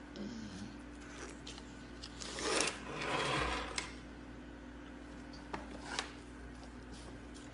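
Handling noise on a phone microphone as a chimpanzee presses up against it: a rubbing, scraping rush about two to three seconds in, then a few sharp clicks, over a faint steady hum.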